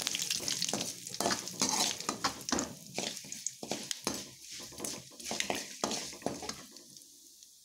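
Curry leaves and dals sizzling in hot oil, the tempering for chitranna, while a steel spoon stirs and scrapes them around the pan in repeated strokes. The sizzle and stirring die down near the end.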